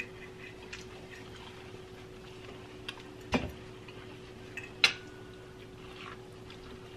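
Quiet table sounds of cutlery on plates: a few scattered clicks and taps, with a soft knock about halfway through and a sharp clink a moment later that rings briefly. A steady hum runs underneath.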